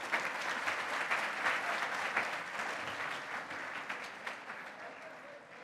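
An audience applauding, the clapping gradually dying away toward the end.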